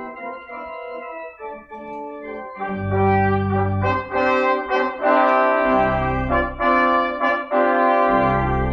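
Instrumental prelude music: slow, held chords with a brass-like sound. It is soft at first, then grows fuller and louder about two and a half seconds in, with deep bass notes under the chords.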